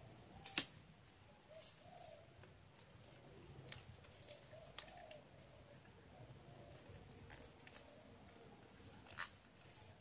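Faint rustling and crinkling of a sheet of origami paper being folded and creased by hand, with scattered sharp clicks of the paper and fingers. The clearest click comes about half a second in, and a second one comes near the end.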